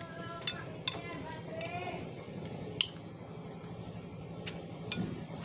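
A few sharp metallic clicks and clinks as a motorcycle throttle body is handled and turned over, the loudest a little under three seconds in, over a faint steady low hum.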